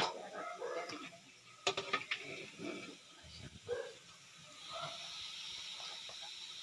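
Scattered faint clinks and small noises, then a steady hiss of pork frying in oil that starts about five seconds in.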